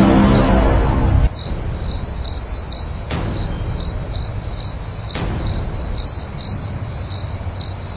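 Cricket chirping: short, high-pitched chirps a few times a second. Background music ends about a second in, and two faint clicks come later.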